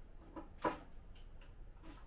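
A few light taps and clicks from handling fittings while a display unit is fixed up, with one sharper knock about two-thirds of a second in.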